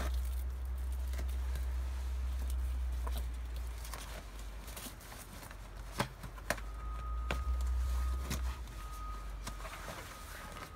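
Scattered clicks and knocks of rubber traction cleats with metal studs being stretched over snow boots and fitted by hand, over a steady low rumble. A faint steady high tone joins about two-thirds of the way through.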